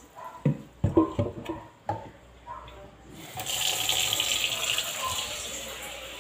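A few short clunks of plastic being handled, then from about three seconds in a kitchen tap runs steadily, its stream splashing into a plastic pitcher.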